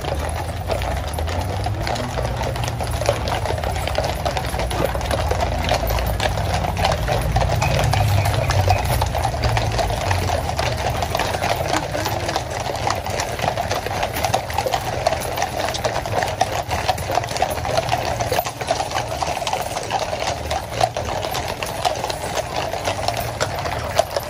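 Many shod cavalry horses walking in procession on a paved road: a dense, overlapping clip-clop of hooves, with a steady low rumble underneath.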